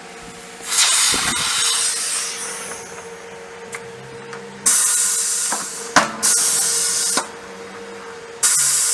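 Pressurised spray hissing in four short bursts; the first is the longest and fades out over about two seconds.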